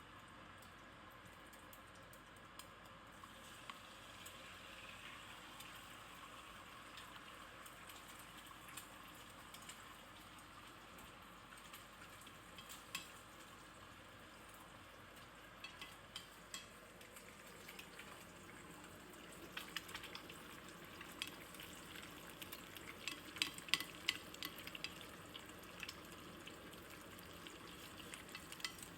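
Food frying in hot oil in a pan: a quiet, steady sizzle with scattered crackles and pops, which come thicker and louder a bit over two-thirds of the way in.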